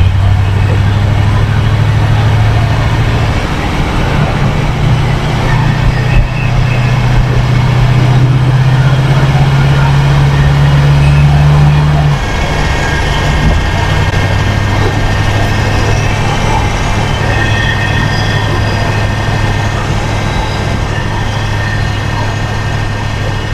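1947 Ford street rod heard from inside the cabin while driving, the engine note climbing slightly and then dropping sharply about twelve seconds in. After the drop a steady high gear whine from the transmission sits over the engine, loud because the transmission is exposed to the interior with no sound deadening.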